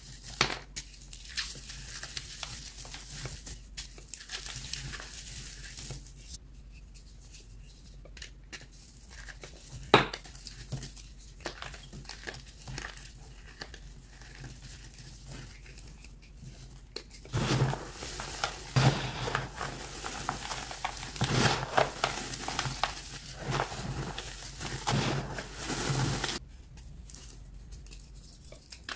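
Blocks of chalk being crushed and crumbled by hand in a tub of loose chalk powder: soft grainy crumbling with small crackles, one sharp snap about ten seconds in, and a stretch of louder, denser crunching in the later part that stops a few seconds before the end.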